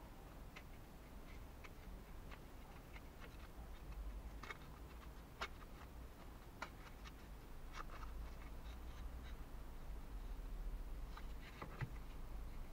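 Light, irregular clicks and taps of thin plywood kit pieces being handled and pressed together, with a sharper click about five and a half seconds in, over a faint low steady hum.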